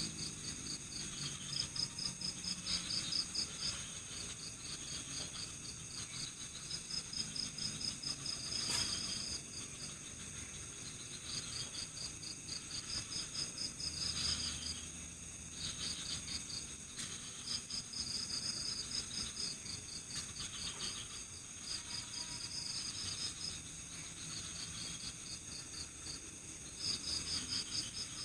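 Night forest insects: crickets chirping in rapid pulsed trains of a second or two that repeat every few seconds, over a steady, shrill insect drone.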